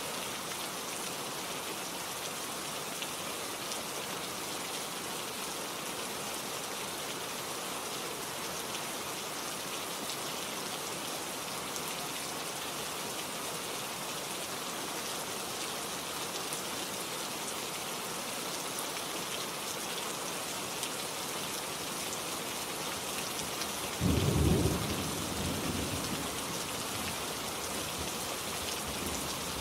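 Steady rain falling, with a sudden clap of thunder near the end that rumbles low and dies away over a couple of seconds.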